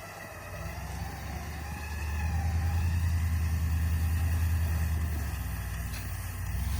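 An off-road vehicle's engine runs, rising in revs about a second in, holding steady, then easing off about five seconds in. A faint wavering whine runs above it.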